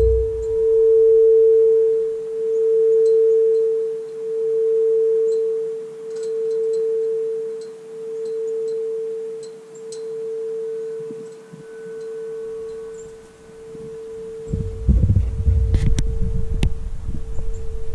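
18-inch bronze locomotive bell humming on after being struck: one steady tone that swells and fades about every two seconds as it slowly dies away. A low rumble and a few clicks come in near the end.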